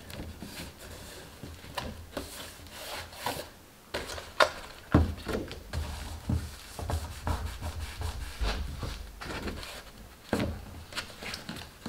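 Hands rubbing and pressing cardstock, smoothing a glued panel onto the side of a paper box, with scattered sharp taps and a few dull knocks as the box is lifted, turned and set down on the cutting mat, the strongest about four and a half and five seconds in.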